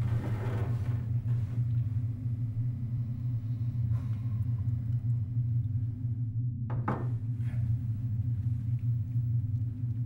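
A steady low rumbling drone, with a short knock about seven seconds in.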